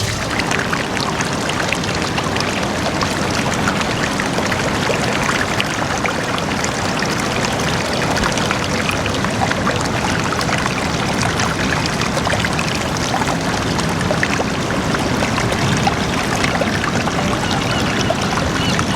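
Running water: a stream pouring and splashing steadily, full of small splashes.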